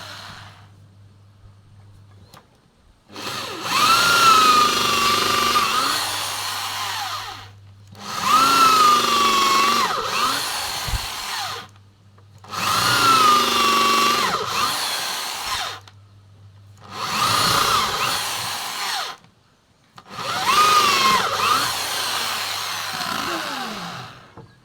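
Electric hand drill with an 8 mm bit boring into wood, running in five separate bursts of about four seconds each, its motor whine rising at each start and then dipping and wavering. The holes are bored in a row to rough out a mortise.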